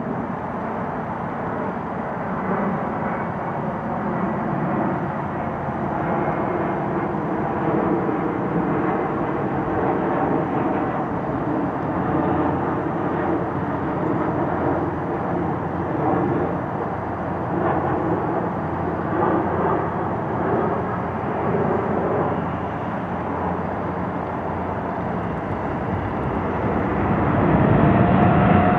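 Boeing 787-8 jet engines on approach and landing: a steady rumbling jet noise that grows louder near the end, when a steady whine comes in as the airliner rolls out on the runway.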